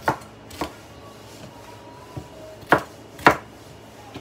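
Kitchen knife chopping okra on a wooden cutting board: four sharp cuts, two close together near the start and two more close together near the end.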